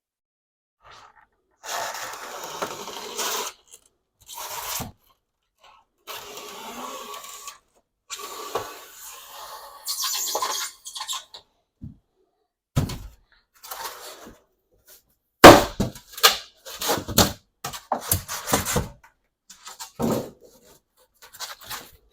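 Foam board and plywood being handled and fitted: several long scraping strokes, then a quick run of sharp knocks and cracks, the loudest about two-thirds of the way in.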